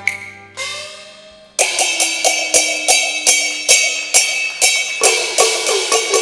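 Cantonese opera percussion: a gong stroke with a falling pitch, then from about a second and a half in, gong and cymbals beating a steady pattern of about two and a half strokes a second.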